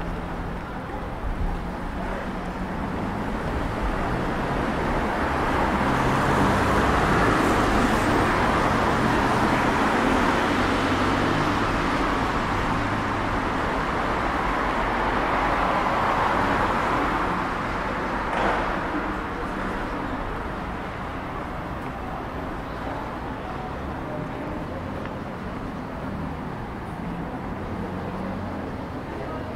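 Road traffic on a wet city street: a passing vehicle's noise swells over several seconds and then fades, over a steady low engine hum. There is a short knock about two-thirds of the way through.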